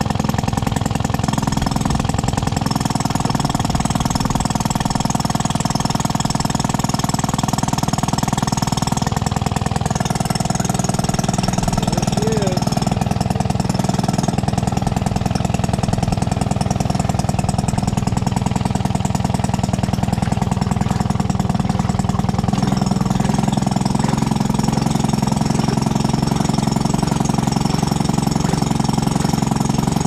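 Maytag Model 72 twin-cylinder two-stroke engine running steadily with a fast, even popping beat, driving a wringer washer's agitator through a tub of water and rags.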